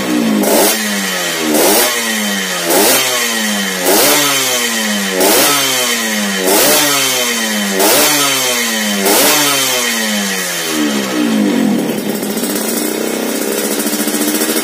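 Yamaha RX-King's two-stroke single-cylinder engine through an aftermarket 'telo' exhaust, revved in about ten short blips roughly once a second, each rising sharply and falling back. Near the end it settles into a steady idle.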